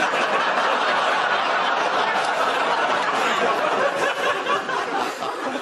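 Studio audience laughing at a punchline: a dense wave of many voices laughing together that starts suddenly and eases slightly near the end.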